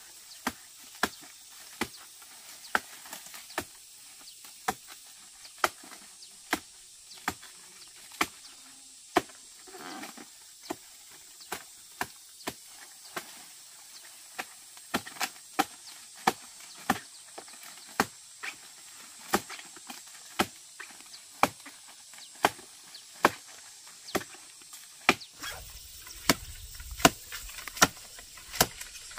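Machete chopping at the woody stalk of a palm fruit bunch: steady, sharp strikes about one and a half a second, growing louder toward the end.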